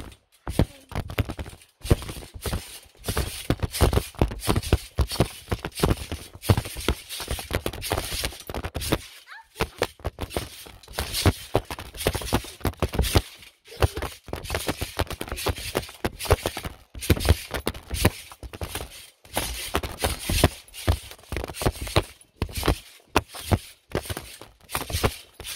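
A phone being tossed on a bouncing trampoline mat, its microphone picking up a dense, irregular run of thuds and knocks, several a second, as the phone lands, tumbles and is jostled by the jumping.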